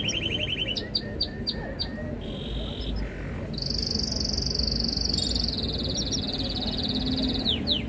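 Domestic canary singing: rapid rolling trills broken by sharp chirps about a second in, a long fast trill through the middle, and quick falling whistles near the end.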